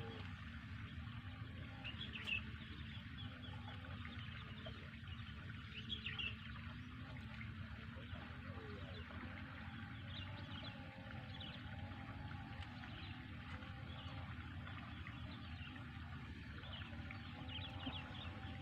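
Quiet open-air ambience: a steady low background rumble and hiss, with faint short bird chirps now and then.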